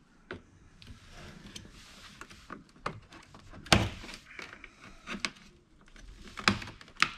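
Plastic pry tool levering a Mercedes GL450's fog-light trim piece out of the front bumper: plastic scraping and creaking, with several sharp snaps as the retaining tabs pop loose, the loudest a little under four seconds in.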